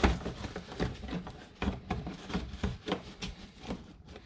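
A bag being handled and pushed into place inside a plastic kayak's hull: irregular knocks and rubbing, with a sharper knock at the start.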